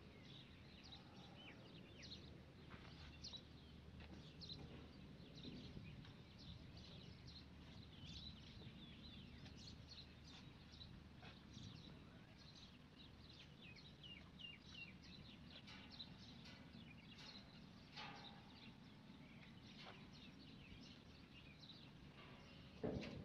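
Many small birds chirping faintly and rapidly, over a low steady background rumble.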